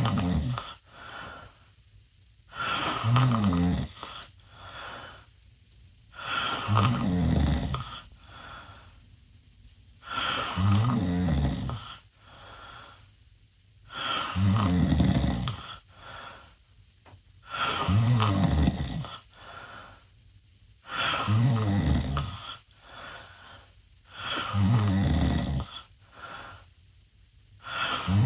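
A 16-year-old boy snoring loudly in his sleep through an open mouth. A loud snore about a second and a half long comes roughly every four seconds, with a fainter breath sound between each.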